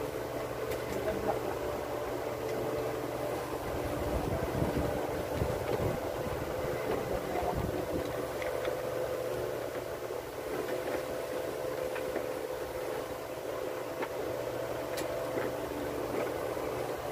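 A steady mechanical hum holds throughout, with a few faint clicks.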